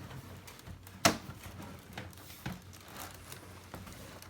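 Packaging being handled during an unboxing: soft crinkling and rustling, with one sharp click about a second in.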